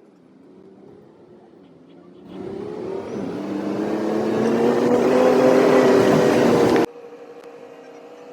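An engine running and speeding up, its pitch rising slowly, louder from about two seconds in. Near the end it cuts off abruptly to a quieter, steady engine hum.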